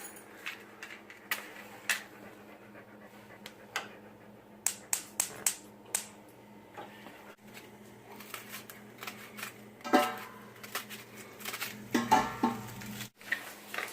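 Kitchen clatter while cooking: a scattering of sharp clicks and knocks, with a quick run of them about five seconds in, over a steady low hum. A short voice-like sound comes about ten seconds in and again near twelve seconds.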